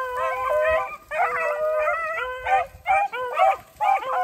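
A pack of rabbit-hunting beagles baying together: several long, overlapping howls at different pitches, with brief gaps about a second in and twice near the end.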